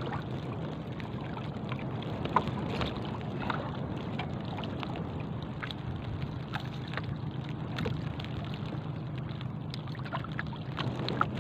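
Steady wash of water and wind around a small wooden outrigger boat at sea, with scattered light ticks and taps.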